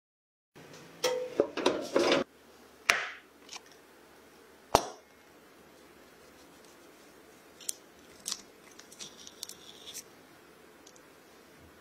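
A knife cuts down through an Oreo cookie and the cupcake beneath it, giving crisp crackling and crunching with a few sharp clicks. The loudest crackling comes early, then single clicks, then quieter crunches later on.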